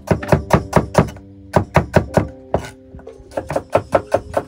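A kitchen knife chopping on a thick wooden cutting board: quick runs of sharp knocks, about five a second, broken by short pauses about a second in, near the middle and again before the last run.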